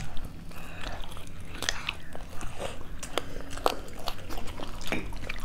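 Close-miked biting and chewing on a fried chicken wing, gnawing the meat off the bone, with scattered short crunches and clicks.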